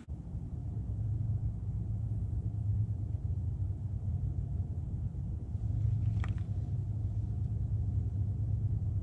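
A steady low rumble, with one faint click about six seconds in.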